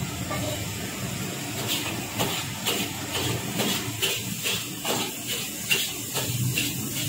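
Dry baking powder and baking soda swishing in a stainless steel mug as it is shaken, in quick even strokes about two a second, starting a couple of seconds in.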